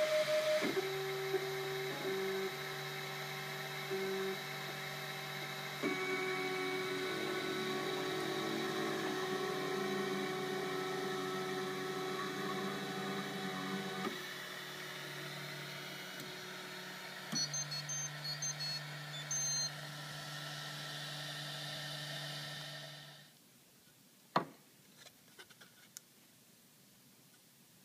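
MakerBot Replicator 2 3D printer running: its stepper motors whine in steady tones that jump to new pitches every second or two as the axes move, over a steady fan noise. A few short high chirps sound about 18 to 20 seconds in, and the machine noise stops about 23 seconds in, followed by a sharp click and a few small handling ticks.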